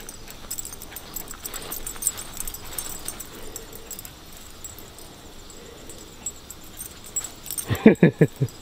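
Footsteps and rustling through grass and low undergrowth, with faint light clicks. Near the end, a short rapid burst of pulsed sound, the loudest thing heard.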